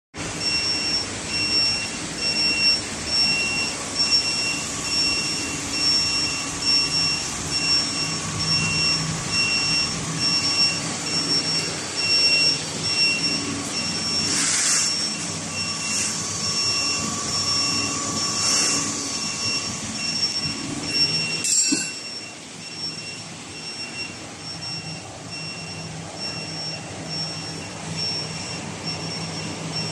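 Steady whooshing machine noise of an air-cooled laser welding machine, with a high beep repeating about twice a second throughout. About 21 seconds in the noise drops suddenly to a lower level while the beeping goes on.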